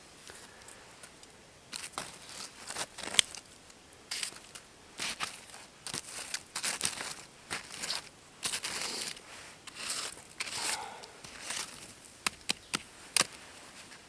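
Irregular rustling and crinkling in short bursts, as of something being handled, with a few sharp clicks near the end.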